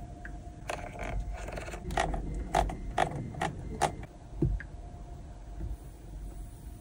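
A series of short, sharp clicks from the car's cabin controls, about eight over three seconds, then a duller knock, over a faint steady hum.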